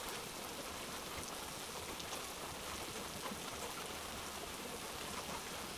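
Steady rain: an even hiss with a few faint scattered drop ticks.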